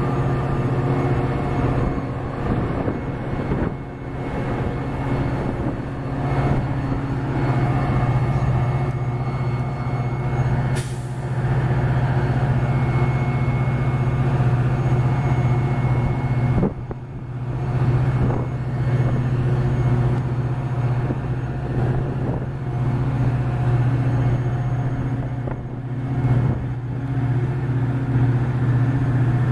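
EMD F40PHM-2 diesel locomotive's 16-cylinder two-stroke engine running steadily with a deep, even hum. A brief high hiss comes about eleven seconds in.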